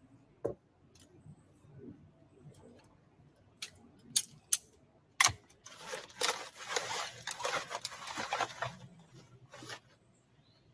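Folding camp table's metal frame poles being taken apart, with a few sharp clicks and clacks, then nylon carry bag rustling for about three seconds from about six seconds in as the parts are packed away.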